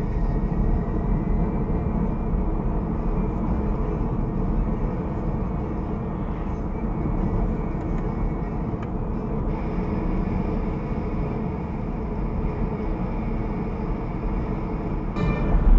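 Steady low road and engine rumble of a car driving, heard from inside the cabin through a dashcam microphone, getting louder with a brief clatter near the end.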